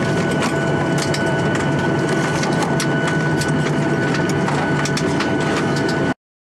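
Airliner cabin noise: a loud, steady engine and air rush with a constant hum and scattered crackling clicks, cutting off suddenly about six seconds in.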